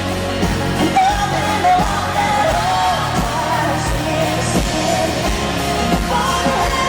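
A woman singing lead in a country-pop song with a live band behind her, over a steady drum beat.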